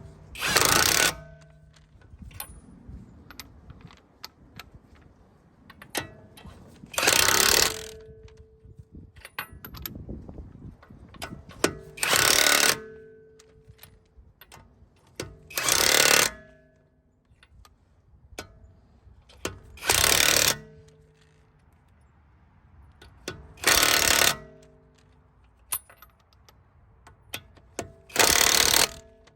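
Impact wrench run in seven short bursts of about a second each, roughly every four seconds, driving the wheel's lug nuts tight through a socket.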